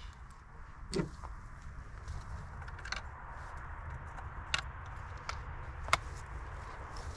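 Pardus ES 12-gauge over-under shotgun being loaded with its action open: a handful of sharp metallic clicks and knocks, a second or two apart, as shells are handled into the breech, the loudest near the end. Under them is a steady low rumble of wind on the microphone.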